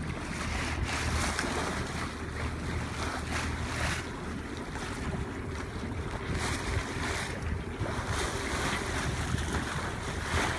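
Wind buffeting the microphone over water rushing and splashing along the hull of a yacht under motor, with the engine's steady low drone underneath.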